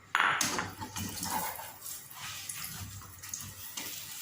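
Chapati frying in a hot pan: a sudden loud sizzle right at the start as it goes in, then steady crackling sizzle with small clicks.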